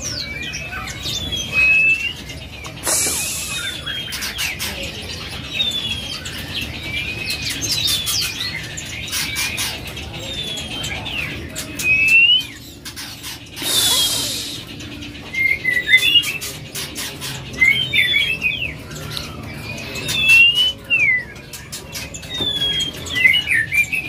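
Caged songbirds chirping and singing, with many short whistled notes and quick rising and falling calls. Two brief rushing noises come about three and fourteen seconds in.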